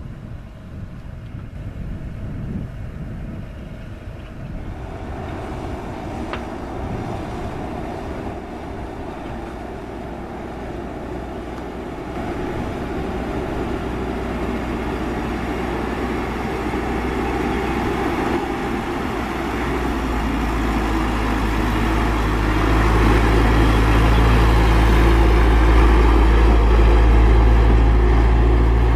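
Diesel engine of a Hino dump truck loaded with soil, pulling up a dirt road. It grows steadily louder, with a deep, steady drone that is strongest in the last third.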